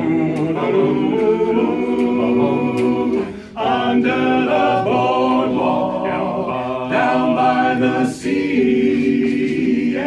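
Seven-man barbershop ensemble singing a cappella in close male-voice harmony: held chords in phrases, with two short breaks between them about three and a half and eight seconds in.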